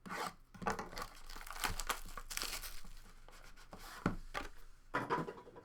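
Plastic wrapping on a box of trading cards being torn open and crinkled by hand, in irregular crackling handfuls with louder rips near the start, in the middle and near the end.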